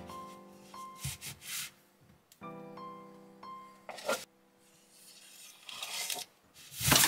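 Knife blade scraping through a sheet of pie pastry onto baking paper as it is drawn around a container, in several short strokes, under soft piano background music.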